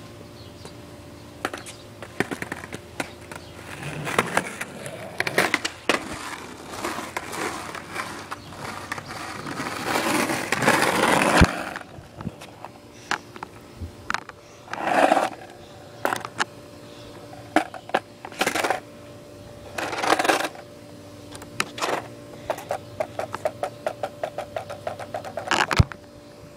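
Skateboard on pavement: wheels rolling and scraping, with clacks from the board and uneven bursts of rolling noise, the longest and loudest about ten seconds in, then shorter bursts and a run of quick ticks near the end.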